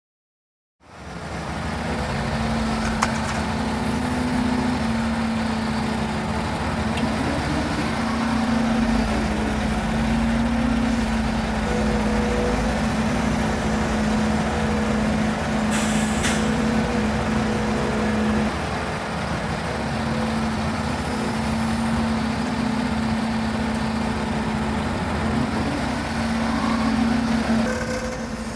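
Volvo EC300E hybrid crawler excavator's diesel engine running steadily under load with its hydraulics as it digs, a level drone with a strong low hum. It cuts in suddenly about a second in, and a brief sharp noise stands out about halfway through.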